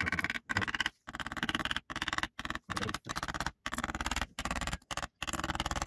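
Aerosol cleaner sprayed through its straw into a limited-slip differential case in about ten short hissing bursts, each stopping abruptly before the next.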